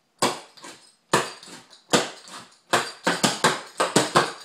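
Clogging shoe taps striking a hard floor while dancing double steps: three single taps about a second apart, then a quicker run of several taps a second from about three seconds in.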